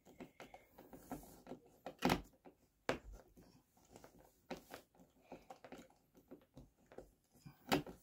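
Screwdriver turning a screw in a low-voltage mounting bracket set in drywall: faint irregular clicks and ticks, with louder knocks about two seconds in, about three seconds in and near the end.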